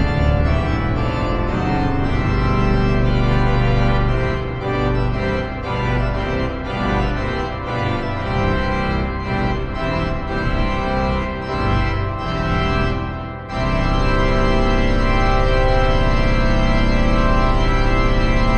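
Pipe organ music from Hauptwerk virtual organ software playing samples of the Rosales organ, with added church reverb: a romantic wedding march in moving full chords. About 13 s in, after a brief dip, a louder full chord is held.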